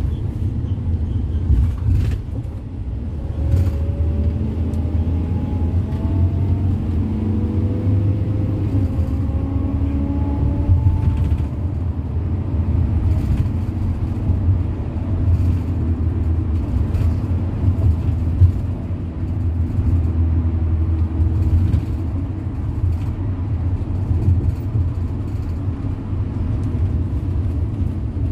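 Engine and road noise heard from inside a moving road vehicle: a steady low rumble, with a rising whine from about four to twelve seconds in as it picks up speed.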